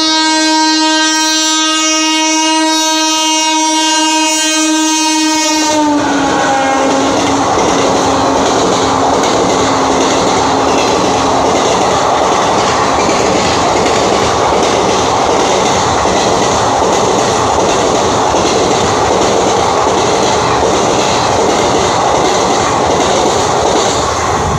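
A WAP-4 electric locomotive sounds its horn in one long note that drops in pitch about six seconds in as it passes. Its ICF passenger coaches then rush by with a continuous clatter of wheels over the rail joints, the "cracking" track sound of ICF stock, easing off near the end as the last coach clears.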